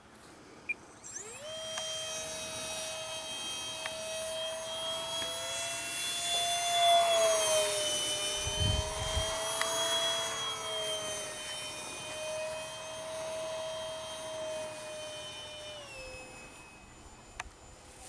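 Electric ducted fan of a TechOne Neptune 64 mm RC flying wing spooling up about a second in, then running at a steady high whine. The whine grows louder around the middle as the wing passes and drops in pitch near the end as the throttle comes back. A brief low rumble is heard about halfway through.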